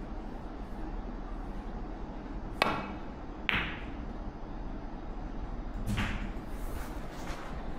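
Snooker shot: a sharp click of the cue tip striking the cue ball, then the cue ball clacking into an object ball just under a second later, and a duller knock about two and a half seconds after that.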